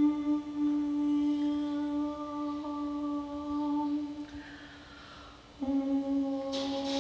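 A voice humming one long, steady note. It fades away about four seconds in and takes up the same note again after a pause of about a second. A brief hiss comes near the end.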